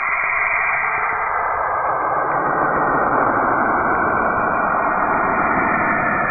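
Space-sound ambience of the kind presented as a planet's sound: a dense, rumbling hiss that swells and spreads lower over the first couple of seconds, then holds steady.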